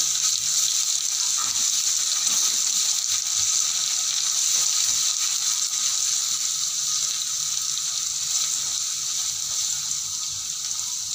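Ginger-garlic paste frying in hot oil in a kadhai with whole spices: a steady sizzle as it is stirred, easing slightly near the end.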